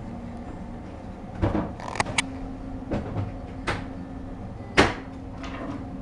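Kittens at play: a string of soft knocks and scuffling thumps, the loudest about five seconds in, over a steady low hum.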